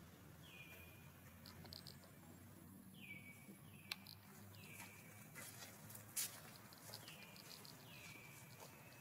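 Faint high whistled call notes, each falling briefly and then holding, repeated about six times over a quiet background. Scattered light clicks, the loudest about six seconds in.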